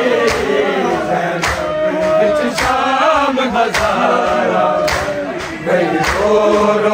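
A group of men chanting a noha, the Shia lament for Muharram, in unison. A sharp beat lands about once a second under the voices, the rhythmic chest-beating of matam.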